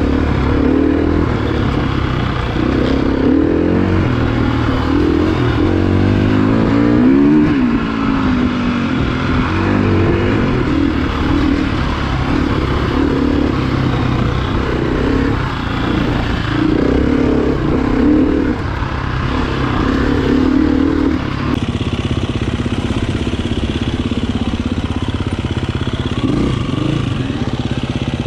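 Enduro motorcycle engine heard from on board, its revs rising and falling over and over as the bike rides a rough trail. About three quarters of the way through the sound changes abruptly to a steadier engine note.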